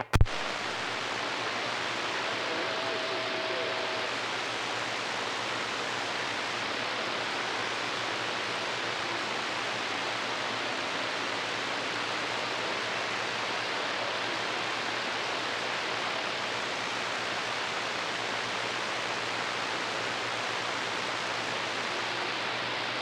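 Steady hiss of static from a CB radio receiver on an open channel, with no station being heard. A sharp click at the very start as the previous transmission cuts off, and a faint brief whistle a few seconds in.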